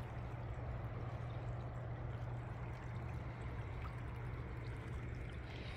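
The Kern River running low over rocks, at under 400 cubic feet per second: a steady rush of flowing water.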